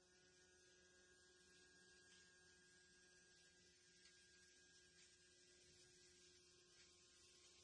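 Near silence with a faint steady electric hum from the motorized vertical blind track as it draws the slats open.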